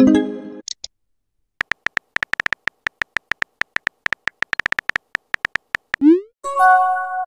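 Rapid keyboard typing clicks from a phone texting app, with a short electronic notification tone at the start. About six seconds in, a rising swoosh as a message is sent is followed by another short chime.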